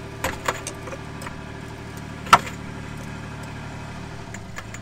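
Floor jack slowly raising the rear suspension knuckle under a compressed coil spring and air helper spring: a few light clicks in the first second and one sharp, loud knock about two seconds in, over the steady hum of an engine running in the background.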